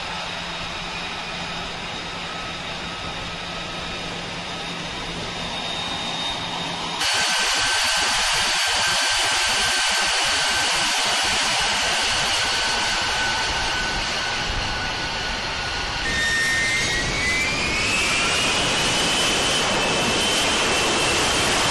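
F-35B Lightning II's F135 turbofan running on a ship's flight deck: a steady jet roar with several high whining tones. It gets abruptly louder about seven seconds in, and near the two-thirds mark one whine rises in pitch and then holds.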